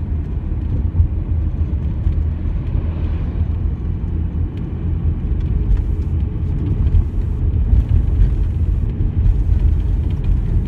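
Car driving along a road, heard from inside the cabin: a steady, low engine and tyre noise.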